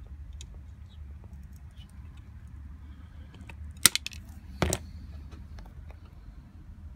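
Wire cutters snipping the copper wire of a three-turn 2.4 GHz helical antenna coil, trimming it to lower the antenna's VSWR: two sharp metallic clicks under a second apart near the middle, over a low steady hum.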